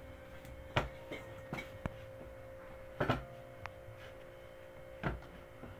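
Hands kneading pizza dough in a bowl: soft thuds about every two seconds as the dough is pressed and pushed against the bowl, the strongest about three seconds in, with smaller clicks between.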